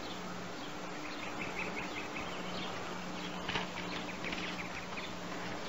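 Faint outdoor ambience: runs of short, high chirps over a steady low hum.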